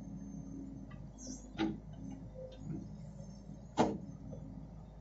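CASE 770 backhoe loader's diesel engine running steadily while its backhoe digs into soil, with sharp metal clanks from the bucket and arm about one and a half seconds in and, louder, near four seconds in.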